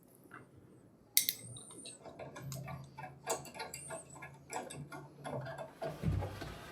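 Light, irregular metal clicks and taps: small parts and a screwdriver being handled while the blade guard goes back onto the scroll saw. A sharp click comes about a second in, and a faint steady hum runs beneath.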